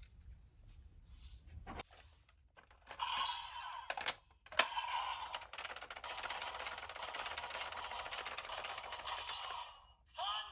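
DX Siren Builder toy robot's electronic jack-up sound effect, a rapid ratcheting clatter of about ten clicks a second over a steady tone, which the toy plays as its siren section is lifted. A few sharp plastic clicks come before it.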